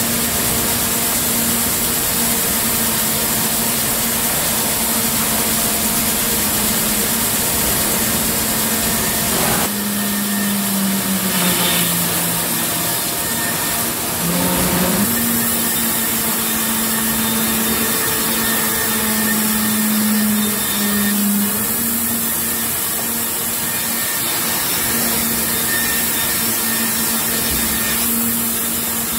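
Circular rip edger saw running as boards are fed through it by the chain conveyor and feed rollers: a steady mechanical drone with a constant low hum. The hum drops in pitch for a few seconds about a third of the way in.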